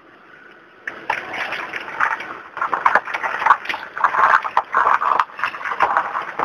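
Ice-crusted ground crunching and crackling underfoot, starting about a second in: footsteps breaking through a glaze of freezing-rain ice.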